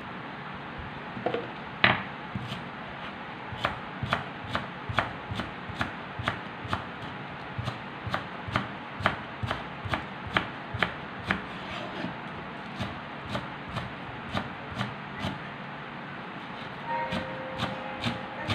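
Kitchen knife chopping spring onions on a wooden cutting board, a steady run of sharp strikes about two a second that stops a few seconds before the end.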